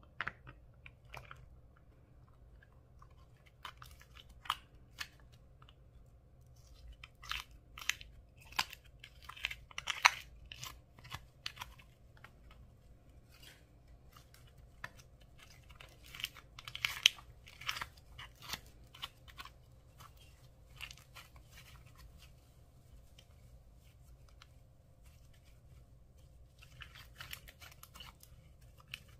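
Hands squishing and kneading a thick slime, giving irregular sticky clicks and small squelching pops. The pops come in busy clusters with quieter stretches between them.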